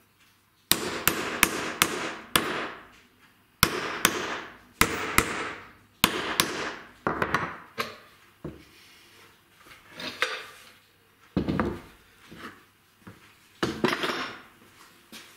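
Hand work on wood: irregular sharp knocks and taps, most followed by a short scraping or sliding sound, with brief pauses between.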